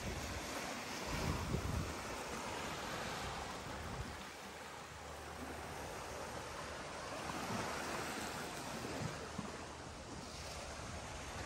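Steady rushing of sea surf and wind, with a few low gusts buffeting the microphone.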